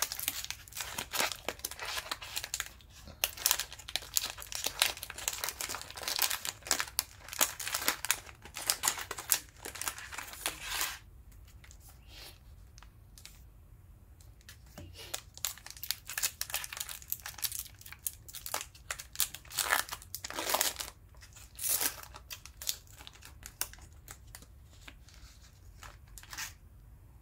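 Plastic trading-card cello pack wrapper being torn open and crinkled by hand: dense crackling and tearing for about the first ten seconds. After that it goes quieter, with scattered crinkles as the torn wrapper is handled.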